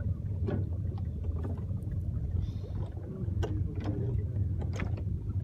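Fishing boat's engine running with a steady low drone, with scattered knocks and clicks on board.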